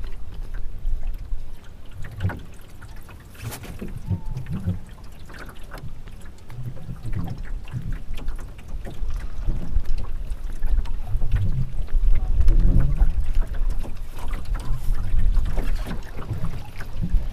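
Water splashing and trickling along the hull of a small wooden sailing skiff under way, in uneven slaps that grow louder in the second half, over a low rumble of wind on the microphone.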